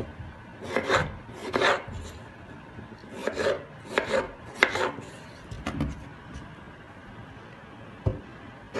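Kitchen knife slicing a peeled raw potato on a wooden cutting board. About eight irregular cuts come in the first six seconds, each a short scrape ending in a knock on the board. A single dull thump follows near the end.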